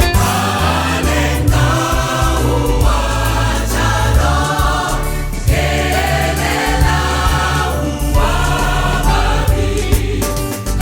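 Choir singing a gospel song in phrases over a band accompaniment with a heavy bass line.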